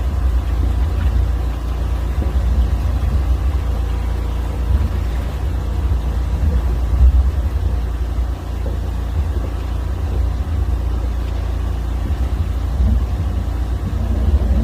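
High-pressure sewer jetting machine's engine and pump running steadily, a continuous low drone.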